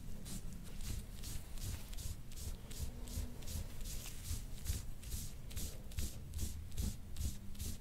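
A dull-edged soft-tissue scraping tool drawn over oiled skin on a back in quick, even scraping strokes, about three a second.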